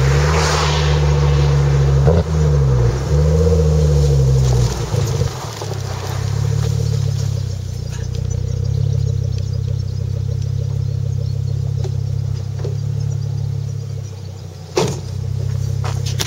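Ford Focus RS engine through its Milltek exhaust: the revs rise and fall a few times over the first five seconds, then settle to a steady idle. A sharp knock comes near the end.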